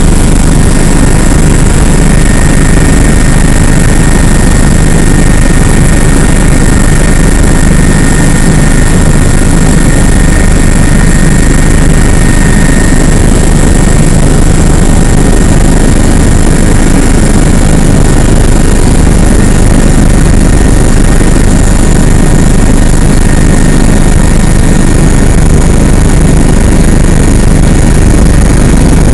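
Helicopter running steadily in flight, heard from inside the cabin: a loud, unchanging mix of rotor and engine noise with a constant high whine.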